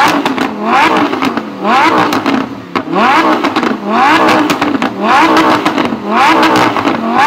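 Lamborghini Huracán V10 being revved while stationary, in quick blips about once a second, each a sharp rise in revs that then falls back.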